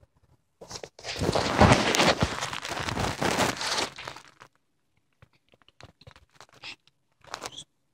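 Handling noise on the recording phone: a loud crackling rub against the phone and its case from about a second in to about four and a half seconds, then scattered short, softer rubs and taps.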